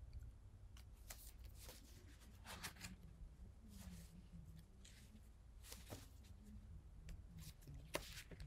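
Faint rustling and handling of paper sheets, a handful of soft brushes and crackles spread through the pause, over a low room hum.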